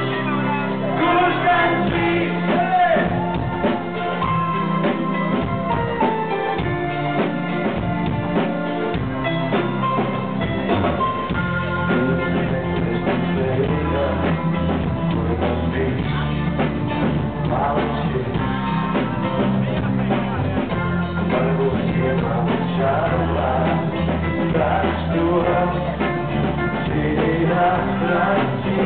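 Live rock band playing a song: a male singer over electric guitars, keyboard, bass and drums, sounding muffled with the treble cut off.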